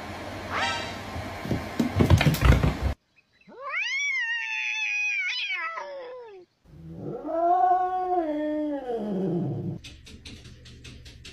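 Knocks and clatter for the first few seconds, then a cat's long, drawn-out meow that rises and falls in pitch, followed by a second, lower and longer yowl. Near the end, a quick run of faint ticks.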